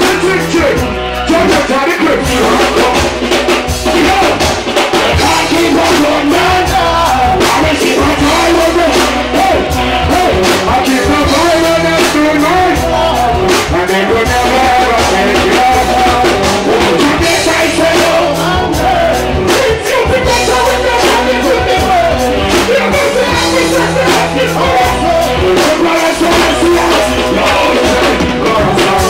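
Live reggae band music, loud and continuous: a male singer on a microphone over electric guitar, a steady low bass line and a drum kit.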